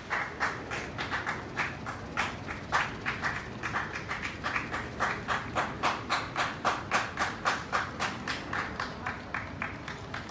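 One person clapping hands close by, a steady run of about four claps a second.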